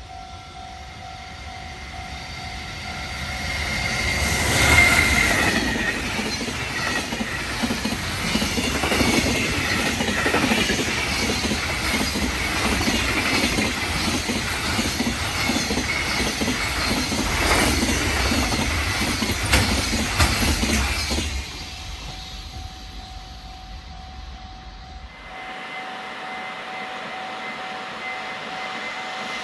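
Electric-locomotive-hauled freight train passing a level crossing at high speed. The locomotive goes by about five seconds in with its traction motor whine, then a long string of wagons clatters over the rail joints for about fifteen seconds before the sound drops away. The steady ringing of the crossing's warning bell is heard before and after the train.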